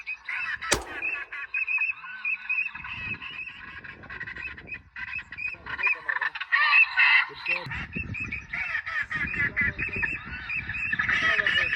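A flock of waterfowl calling, ducks and geese in many overlapping honks and quacks throughout. A single sharp crack sounds about a second in.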